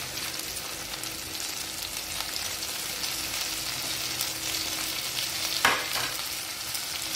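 Sliced button mushrooms frying in hot oil with mustard seeds and dried red chillies in a clay pot, sizzling steadily. A short clatter a little under six seconds in.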